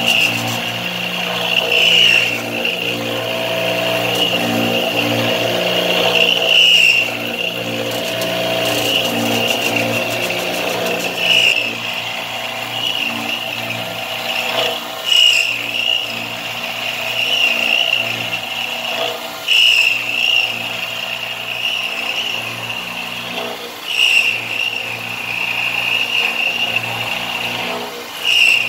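Enshu 609DD-1 CNC machining centre milling a circular pocket in a metal block with an end mill under coolant: a steady high cutting whine over the low hum of the spindle and drives, swelling briefly every four to five seconds.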